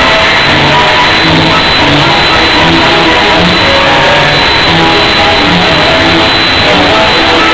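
Argentine tango music played loud, recorded with heavy hiss and distortion, with short melodic notes standing out through the noise.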